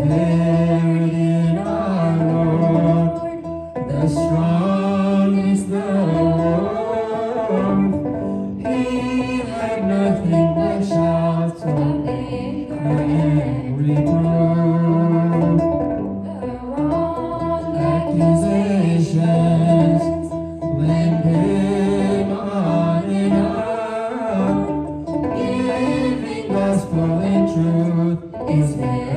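A man and a woman singing an English-language Ethiopian Orthodox Tewahedo hymn (mezmur) into microphones, over a steady instrumental accompaniment.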